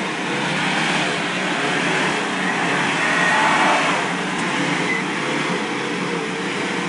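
Car engine held at high revs, its pitch wavering up and down.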